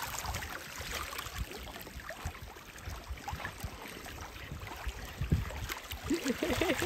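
Sea water lapping and splashing in the shallows, small uneven splashes over a low rumble of wind on the microphone.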